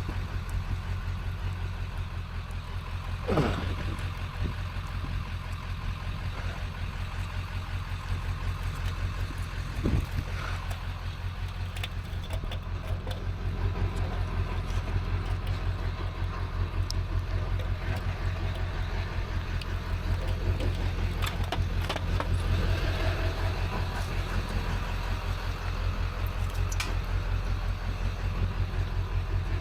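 Motor vehicle engine running steadily with a low, fast-pulsing hum, with a short falling squeak about three seconds in and a knock near ten seconds.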